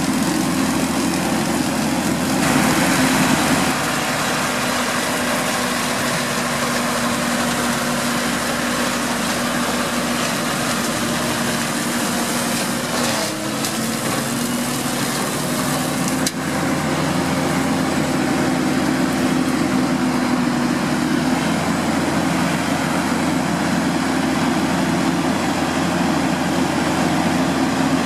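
New Holland TM140 tractor's six-cylinder diesel engine running steadily, with a brief dip in level about halfway through and a short click soon after.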